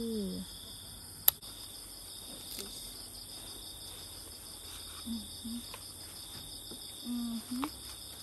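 Crickets and other insects chirring steadily in a continuous evening chorus. A single sharp click stands out about a second in, and a few short low hums come near the middle and end.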